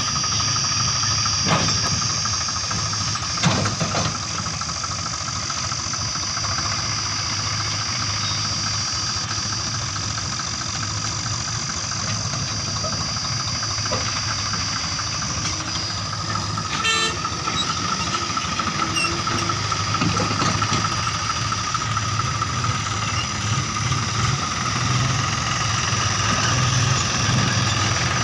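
Diesel tractor engine idling steadily, with a steady high whine over it and a couple of sharp knocks in the first few seconds.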